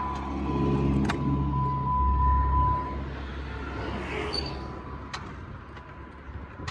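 A low vehicle rumble with a steady high tone for about three seconds, then fading, and a single sharp click about a second in. The click fits the starter clicking on a 2010 Dodge Charger V8 that won't crank.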